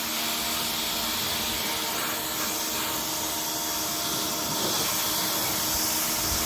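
SCA 1450 psi electric pressure washer running under trigger, its motor and pump giving a steady hum beneath the loud hiss of the high-pressure water jet.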